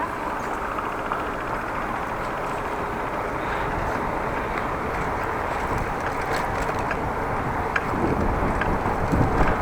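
Steady wind rush and road noise on an action camera's microphone during a bike ride, with a few faint clicks and some stronger low gusts near the end.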